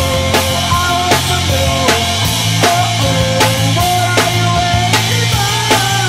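Rock band playing an instrumental passage without vocals: a drum kit keeps a steady, fast beat under bass and a held, bending melodic guitar line.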